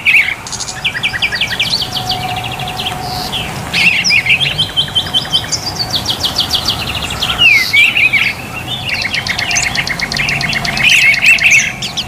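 Songbirds singing: fast trills and runs of quick repeated chirps, several calls overlapping with hardly a pause.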